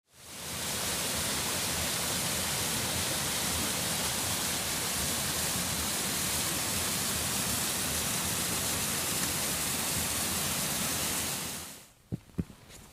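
Steady rushing noise of falling water that fades in at the start and fades out about a second before the end, followed by a few sharp clicks.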